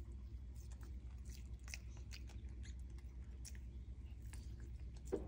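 Spider monkey chewing a soft pumpkin ball, with faint, irregular wet clicks and smacks of the mouth over a low steady hum.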